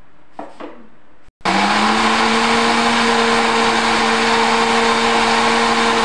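Electric mixer grinder with a steel jar grinding onions. After a couple of light knocks, the motor starts about a second and a half in and runs loud and steady with a constant hum.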